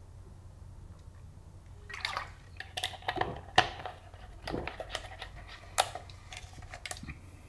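A plastic drinking bottle being handled after a drink: crackling of the thin plastic and clicks, starting about two seconds in, with two sharp louder clicks.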